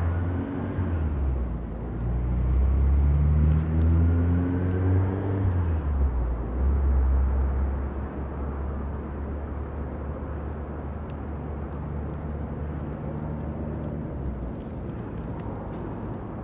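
A motor vehicle's engine running, its pitch rising twice in the first six seconds as it speeds up, then settling to a steadier, quieter low drone whose deepest part drops out about two seconds before the end.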